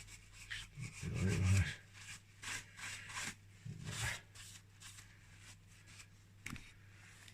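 Cloth rag being rubbed over the crankcase of a two-stroke motocross engine, wiping it clean in a series of irregular scrubbing strokes that thin out after about four seconds, with a single sharp click near the end.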